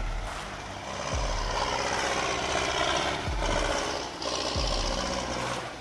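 TDT-55 tracked skidder's diesel engine running steadily, with a low thump recurring every second or two.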